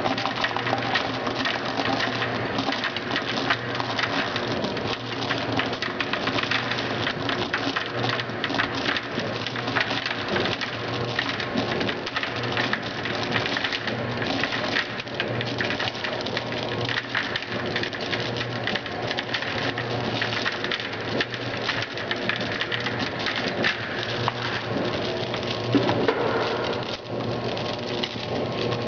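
Many small pieces of gum rattling against the stainless steel pan of an industrial feeder, a dense and continuous clatter of tiny clicks. Under it runs a steady low machine hum.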